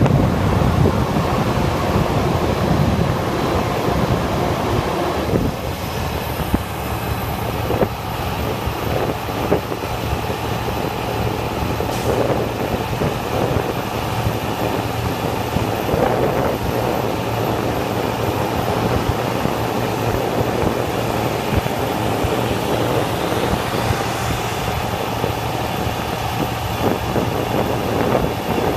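Steady drive noise inside a vehicle cruising along a highway: a constant low engine hum under tyre and wind rush.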